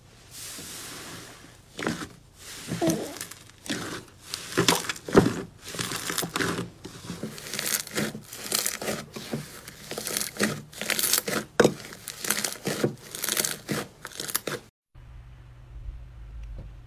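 Hands pressing, folding and squeezing a large mound of thick purple slime, giving an uneven run of many short crackles and pops. It cuts off suddenly near the end, leaving only a faint low hum.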